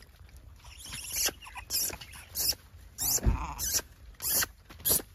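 Gray langurs giving short, shrill squeals, about six in a row, as they scuffle and grab over food.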